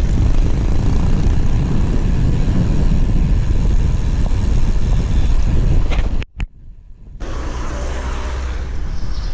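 Steady wind rumble and road noise on a GoPro action camera while cycling. It cuts out suddenly about six seconds in and comes back a second later as a quieter steady noise.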